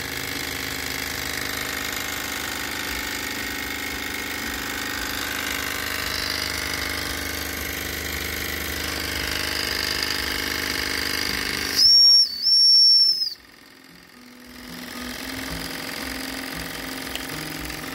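Jensen Model 65 toy steam engine running on live steam, a fast steady mechanical chatter with steam hiss. About twelve seconds in a steam whistle gives two short, loud, high blasts. The running sound then drops away for a moment and builds back up.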